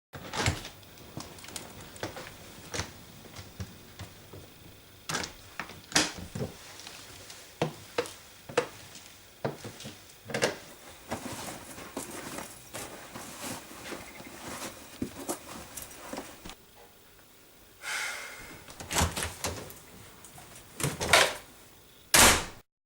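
A door being handled: a long series of latch and handle clicks, knocks and thumps, a short scraping rub about 18 seconds in, and the loudest knocks near the end.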